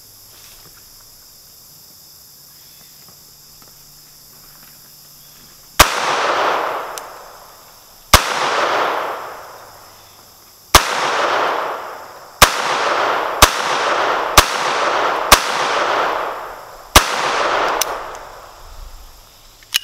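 Iver Johnson .22 LR semi-automatic pocket pistol fired eight times, beginning about six seconds in, at uneven gaps of one to two and a half seconds. Each sharp crack is followed by a long echo that dies away over a second or more.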